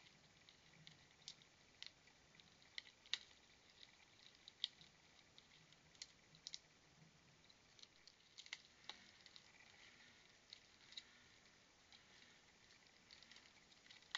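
Faint, irregular clicks and taps from a raccoon clinging to and working at a plastic tube bird feeder, with its claws scraping and the feeder and seed rattling. The sharpest ticks come about three and four and a half seconds in.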